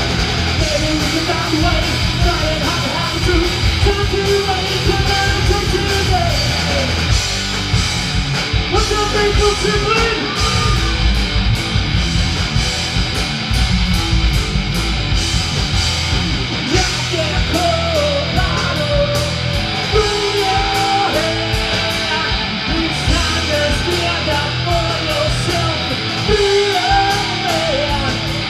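Hard rock band playing live and loud through a club PA, heard from the crowd: distorted electric guitars, bass and drums, with a singer's voice over the top.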